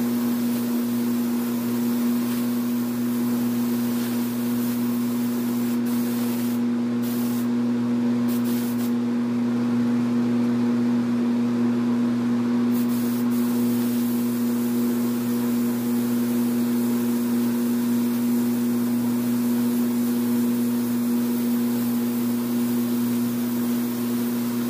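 Compressed-air hiss of a gravity-feed spray gun painting a car bumper, over a steady machine hum. The top of the hiss thins for a few seconds about a quarter of the way in.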